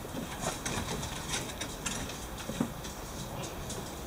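Dogs' claws ticking on wooden deck boards as they walk and mill about: many light, irregular clicks.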